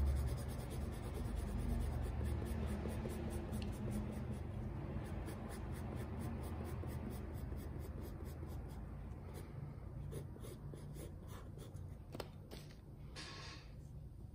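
Soft graphite pencil scratching on drawing paper in quick, repeated back-and-forth shading strokes, with a louder stroke near the end.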